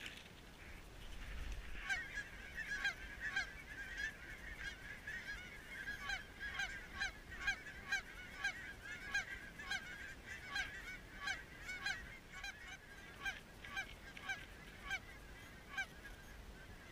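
A flock of geese honking, many short overlapping calls at once, starting about a second and a half in.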